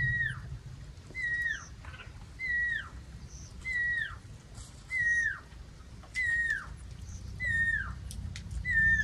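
A night bird's whistled call, a short held note that falls steeply in pitch, repeated about every second and a quarter. Under it is a low rumble from elephants, fading in the first second and swelling again near the end.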